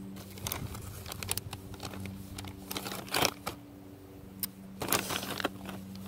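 Light clicks and rustling from hands handling close to the microphone, over a steady low hum. The sharpest clicks come about three seconds and five seconds in.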